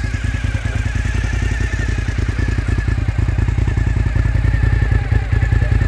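V-twin sportbike engine with an aftermarket exhaust, running steadily at idle with an even, pulsing beat.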